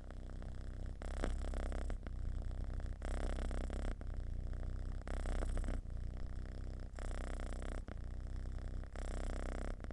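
Domestic cat purring deeply and steadily, in even pulses about a second long that alternate with each breath in and out.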